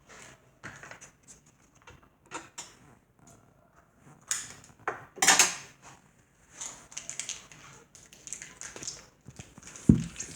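Small objects handled on a table: irregular clicks, scrapes and rustles, loudest about five seconds in, with a couple of low thumps near the end.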